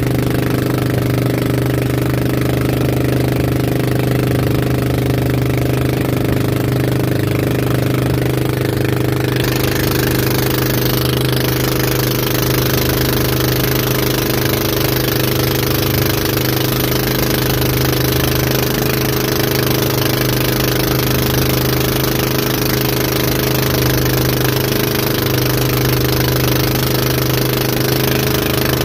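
Engine of a motorized outrigger boat running steadily at towing speed, a constant low drone with a slight clatter. Under it there is a hiss of wind and water that gets louder about nine and a half seconds in.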